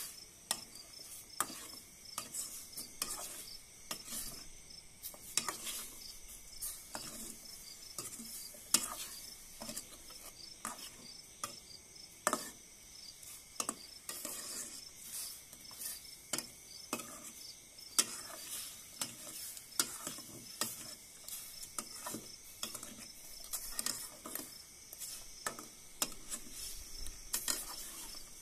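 A spatula knocking and scraping against a stainless steel pot as fish pieces, lemongrass and shallots are stirred, with the food sizzling in the pot. Crickets chirp steadily in the background.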